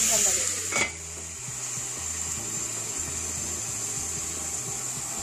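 Clams sizzling in hot oil in a stainless steel pot; the steel lid is set on with a clink about a second in, and the sizzle then goes on quieter and muffled under the lid.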